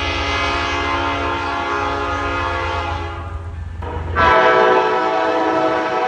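Train air horn sounding a long multi-tone chord over a deep low rumble, tapering off about three seconds in; just after four seconds in, a louder horn chord starts and holds while the rumble stops abruptly.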